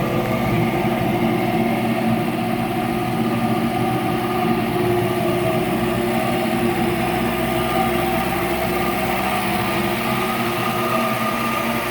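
1980 MG MGB's 1.8-litre four-cylinder engine idling steadily while still cold.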